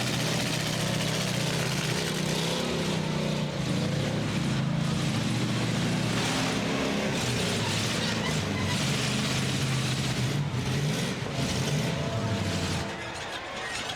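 Engines of demolition derby trucks running hard, their pitch wavering up and down as they rev, easing off briefly near the end.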